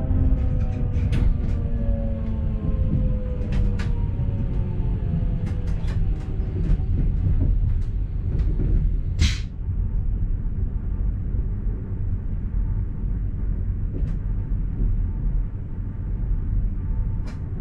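ABe 4/12 'Saphir' electric railcar running, with steady rumble and wheels clicking over rail joints. Its traction drive whine falls in pitch over the first few seconds as the train slows. A brief sharp hiss comes about nine seconds in.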